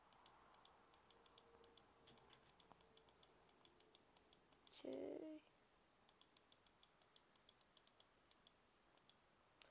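Faint, rapid computer mouse clicks, several a second, from clicking countries on a map to colour them in. A short muffled hum-like vocal sound about five seconds in.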